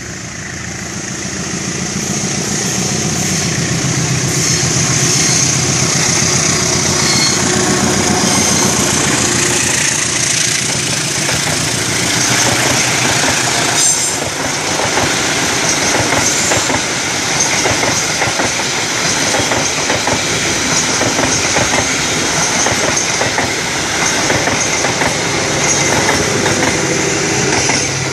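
Diesel-hauled passenger train passing close by. The locomotive's engine grows louder over the first few seconds as it approaches, then the wheels of the coaches clatter steadily over the rail joints as they roll past.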